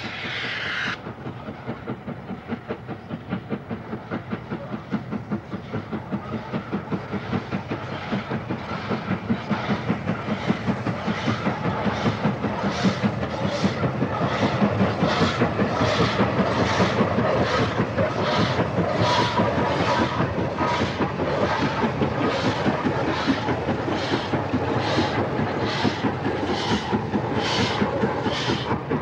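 LMS Black Five 4-6-0 steam locomotive working a train, its exhaust beating in a steady rhythm that grows louder over the first dozen seconds and then holds.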